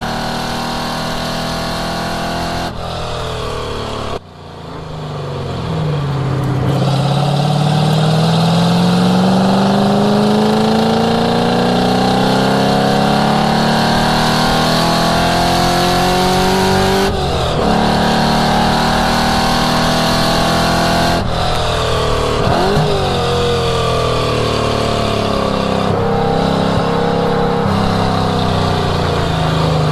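1967 Ford Mustang's engine running hard on a race track. It drops off briefly about four seconds in, then climbs steadily in pitch for over ten seconds. The pitch falls around the middle, there is a quick blip a little later, and it climbs again near the end.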